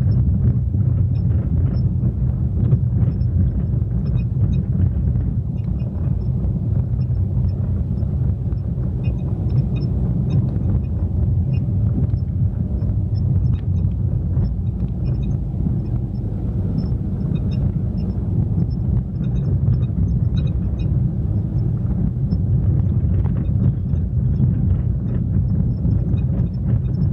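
Volkswagen Fox on the move: steady low road and tyre rumble with light, irregular rattling ticks from the front wheel, the sign of loose brake pads.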